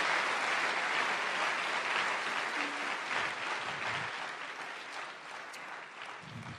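A large audience applauding, the clapping slowly dying away toward the end.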